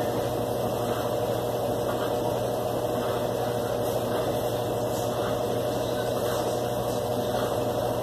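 Consul CWB12 top-loading washing machine running with a steady motor hum.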